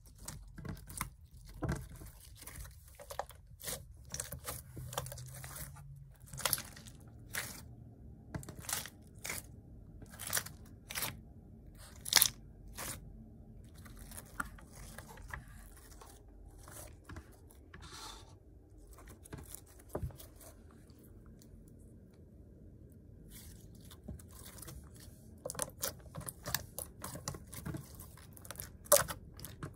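Glossy glitter slime being stretched, kneaded and pressed by hand, giving irregular sharp clicks and pops. The clicks come thick at first, thin out in the middle, and crowd together again near the end.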